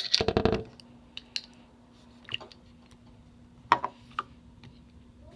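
Slime being poked and squeezed by hand, giving scattered small clicks and pops over a steady low hum, after a brief vocal sound at the start.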